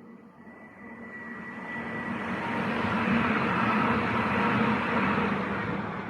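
A train passing on the rails below, rising to its loudest about three to five seconds in and then starting to fade. A thin high steady tone is heard during the first two seconds as it approaches.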